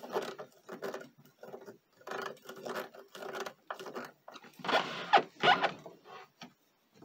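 Hand screwdriver tightening a hinge screw on a Roland RE-150 Space Echo's cabinet: a string of short, irregular scraping turns, loudest about five seconds in.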